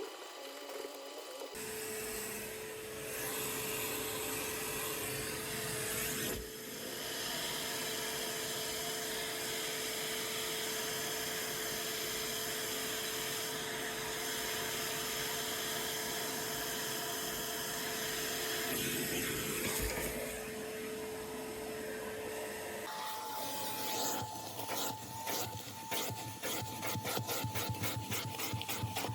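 Scrubbing and rubbing over a small motor's steady whine. After a sudden change about two-thirds of the way through, a higher-pitched whine comes with quick, rhythmic scrubbing strokes.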